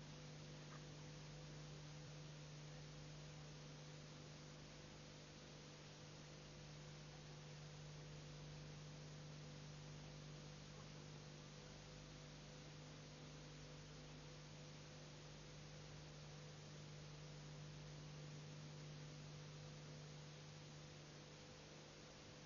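Near silence: a steady electrical hum over faint hiss.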